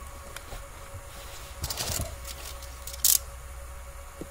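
A blade cutting and scraping electrical tape off a car's wiring harness: soft scraping strokes a couple of seconds in, then one brief sharp scrape about three seconds in, over a faint steady hum.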